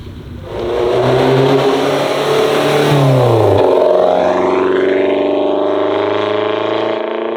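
Audi A3 Sportback with a custom RVS exhaust accelerating loudly. Its exhaust note holds steady, drops in pitch about three seconds in, then carries on lower and fades near the end.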